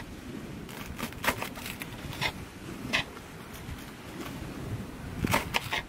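Knife shredding cabbage on a wooden board: irregular crisp cuts, with a quick run of several strokes near the end.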